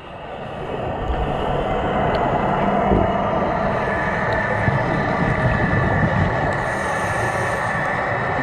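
Steady, muffled underwater rushing noise, fading in over the first second or so and then holding even.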